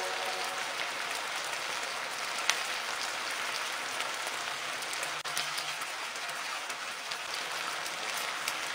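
Chicken wings sizzling in a frying pan in a thick Coca-Cola glaze, a steady hiss with a few sharp clicks as metal tongs turn them.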